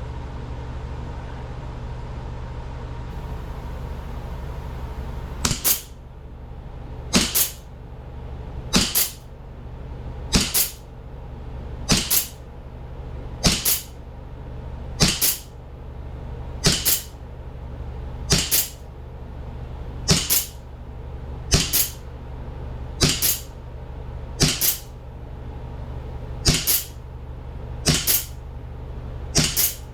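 Replica Springfield 1911 CO2 pistol shooting single shots at an even pace, about one every second and a half, some sixteen in all, starting about five seconds in; each shot is a short crack with a second one close behind. A steady low hum runs underneath.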